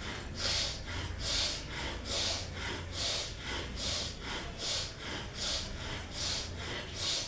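A woman doing bhastrika (bellows breath) pranayama: forceful breaths drawn in and pushed out through the nose in a steady rhythm, a little more than one a second.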